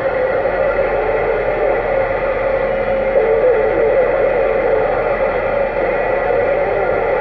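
Radio receiver hiss and static from a President Lincoln II+ radio's speaker on 27.025 MHz AM, with the squelch open and no station transmitting. The noise is steady, and a faint wavering whistle of a distant signal drifts through it about three seconds in.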